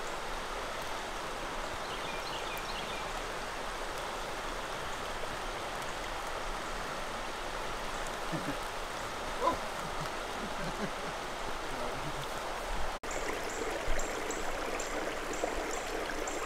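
Steady rush of flowing creek water, with a brief break about thirteen seconds in.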